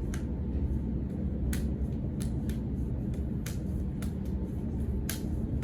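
Short sharp slaps and snaps from martial arts hand-drill strikes and blocks, coming irregularly about eight times, over a steady low rumble.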